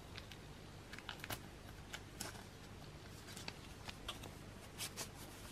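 Paper sheets and card being handled in a cardboard box: light, scattered taps and rustles over a faint low hum.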